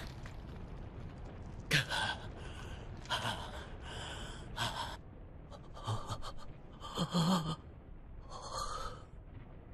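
A voice actor's heavy gasping for breath as an exhausted, injured anime character: a string of short, ragged gasps, irregularly spaced less than a second apart.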